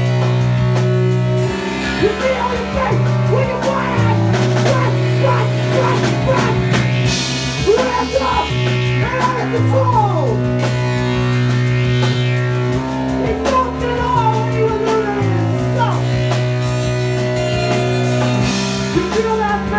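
Rock band playing live: drum kit with several cymbal crashes, a bass line of held notes, guitar and keyboards, with a singer on the microphone.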